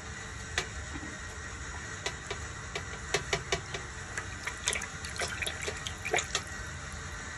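Shallow water in a basin splashing and dripping as a hand sweeps through it, a run of small, sharp splashes from about two seconds in until near the end.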